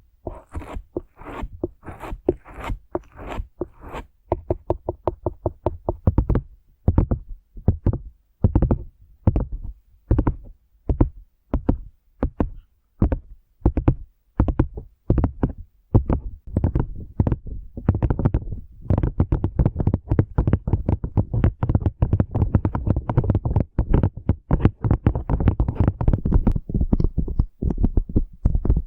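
A brush being stroked quickly and repeatedly for ASMR, a steady run of short, scratchy brushing strokes that come more thickly toward the end.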